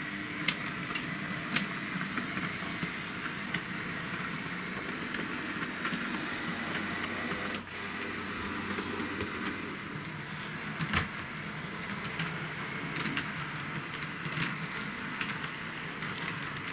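H0-scale model tram running on its layout track: a steady small-motor whir with occasional sharp clicks of the wheels over rail joints and points.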